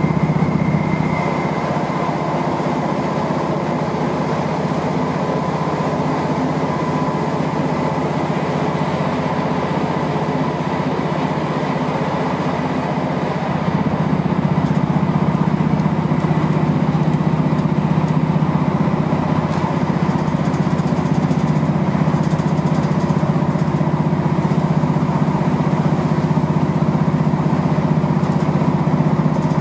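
Diesel train's engine running under power, heard from inside the passenger carriage as a steady drone. It grows louder about halfway through.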